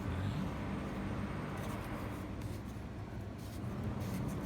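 Faint clicks and rustles of an object being handled, over a steady low background rumble.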